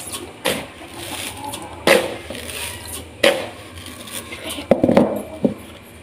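Kitchen handling noise: a plastic container knocking against a rice-cooker pot while sugar is added. There are several sharp knocks, about one every second and a half, then a quick cluster of knocks near the end.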